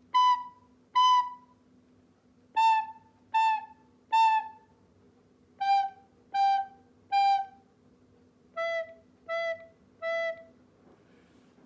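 Soprano recorder playing short tongued notes in groups of three, each group lower: B, then three As, three Gs and three Es, with a rest between groups.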